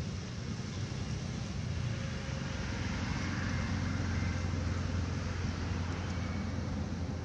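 Steady low rumble like a running motor-vehicle engine, a little stronger from about three seconds in, over an even outdoor background noise.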